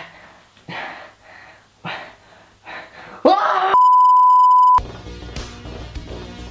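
A man's short vocal noises, then a loud cry rising in pitch, cut off by a loud steady single-pitch electronic beep lasting about a second. Low background music comes in after the beep.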